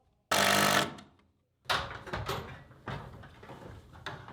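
A power drill runs in one short burst of about half a second, driving a fastener into the last wooden wall stud. A string of lighter knocks and taps follows.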